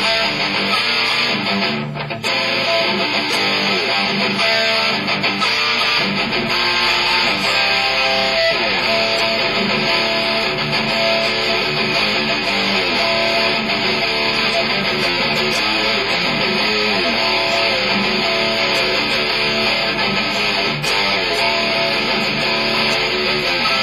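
Electric guitar played continuously with a pick, notes sometimes sliding or bending in pitch, with a brief dip in loudness about two seconds in.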